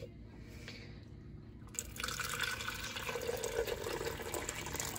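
Filtered water poured from a pitcher into an empty plastic Nutribullet blender cup. The pour starts just under two seconds in and runs on steadily as the cup fills.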